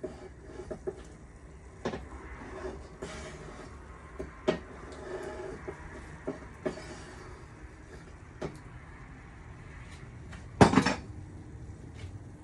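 Scattered knocks and scrapes from working inside a homemade wood-fired oven with a gloved hand, with one much louder clank about ten and a half seconds in.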